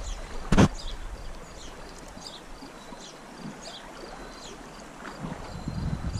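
Shallow stream running over a gravel riffle, a steady rush, with one sharp knock about half a second in and faint short high chirps throughout.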